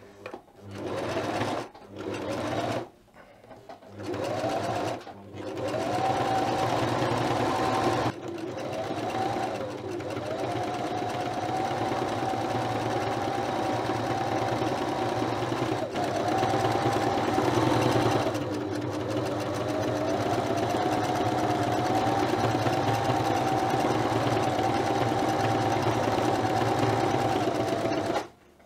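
Singer electric sewing machine stitching a hem through gingham fabric, its motor whining over the rapid chatter of the needle. It starts and stops in three short runs, then sews steadily for most of the time, its speed rising and easing under the foot pedal.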